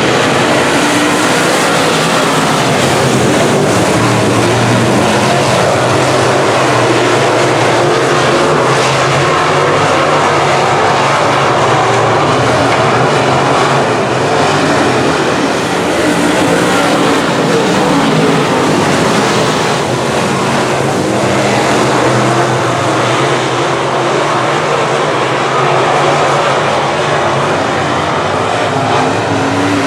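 Field of semi late model race cars running at racing speed, their engines merging into one loud, continuous drone that rises and falls slightly as the cars go around.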